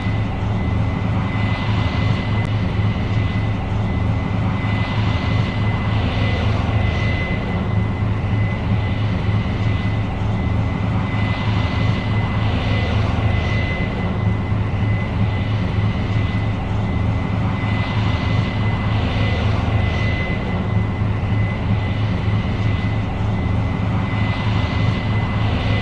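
Case IH 8230 Axial-Flow combine running while harvesting soybeans: a steady deep engine drone with a constant high-pitched whine over it. A hiss swells and fades every few seconds.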